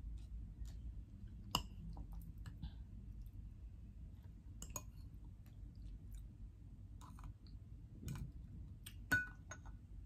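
Close-up chewing and wet mouth clicks of someone eating soft kiwi slices, with a few sharp clinks of a metal spoon against a glass bowl, the loudest near the end with a short ring.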